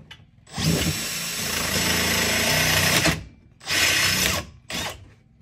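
Power drill boring a quarter-inch hole: one long run of about two and a half seconds, then two shorter bursts near the end.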